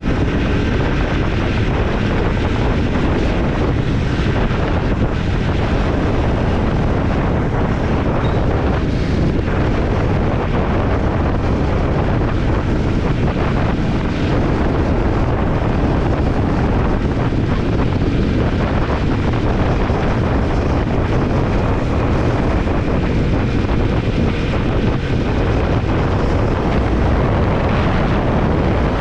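Triumph Scrambler 400 X's single-cylinder engine running steadily while riding on the road, with heavy wind noise on the camera microphone.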